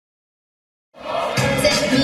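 Silence, then recorded music with a beat starts about a second in, rising quickly to full level.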